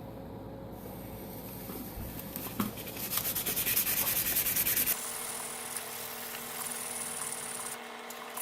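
Hand sanding of a metal CPU heatsink base on 600-grit sandpaper: rapid back-and-forth strokes, most distinct about three seconds in, giving way to a steadier, fainter rubbing hiss about five seconds in.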